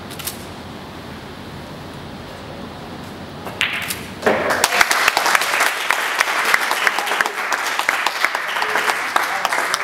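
A single sharp click of a cue tip striking the cue ball near the start. About four seconds in, an audience breaks into applause that keeps going: the match-winning ball has dropped.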